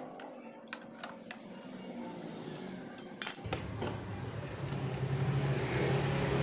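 Sparse metallic clinks of a hand tool working the bolts on a Honda Astrea Grand's magneto cover. A little over three seconds in, a steady low rumble starts suddenly and grows louder.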